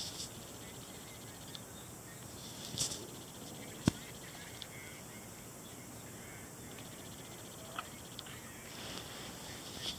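Faint steady hiss with a few isolated clicks; one sharp click about four seconds in stands out.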